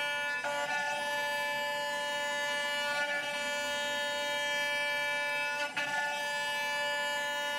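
Home-built CNC router running while it mills a wooden guitar body blank: a steady whine of many held tones from the spindle and drive motors. The tones shift in pitch, with a brief rustle, about every two and a half seconds as the cutting moves change.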